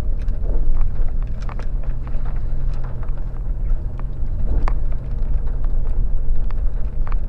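Off-road vehicle's engine running steadily at low speed, with scattered knocks and rattles as it goes over rough ground.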